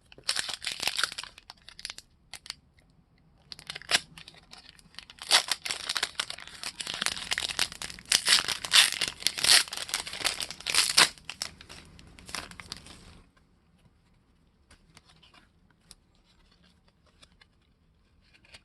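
Plastic trading card pack wrapper being torn open and crinkled by hand, a rapid crackling that stops about two-thirds of the way through, leaving only faint taps of cards being handled.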